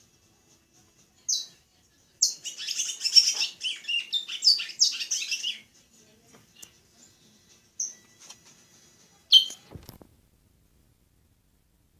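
Caged congo songbird singing: a few single high chirps, then a fast twittering phrase about three seconds long, then two more single chirps. A brief low bump comes near the end.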